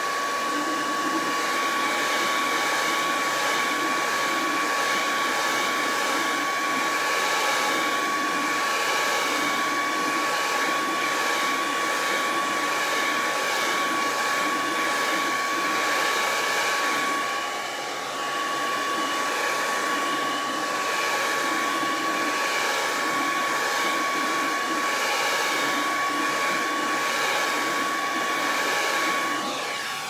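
Hand-held hair dryer blowing steadily, with a constant whine over its rushing air, used to dry freshly applied chalk paste. Its level dips briefly a little past halfway through.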